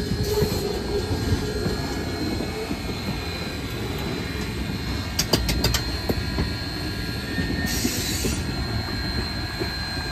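Baldwin 0-6-0 steam locomotive No. 58 rolling slowly past with its train: a low rumble of wheels and running gear under a thin, steady high squeal from the wheels on the rails. A few sharp clicks come a little past halfway, and a brief hiss about eight seconds in.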